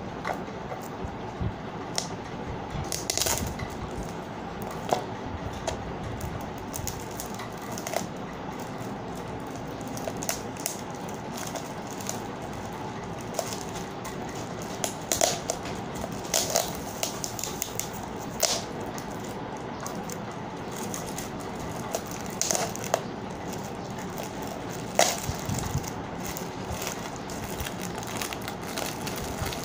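Shiny foil gift wrap crinkling and crackling as it is handled and torn off a box, in irregular rustles with a few sharper, louder crackles now and then.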